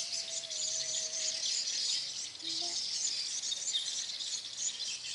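Dense, continuous chirping of many small birds, high-pitched and busy, with no single call standing out.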